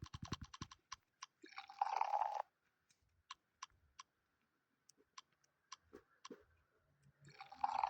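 Custom key-press sound effects from a phone keyboard app as keys are tapped. A quick run of clicks comes first, then scattered single clicks, with two short crunchy bursts, one about two seconds in and one near the end.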